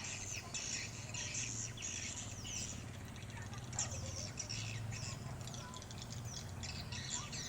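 Edible-nest swiftlets twittering: a dense chorus of short, overlapping chirps, over a steady low hum.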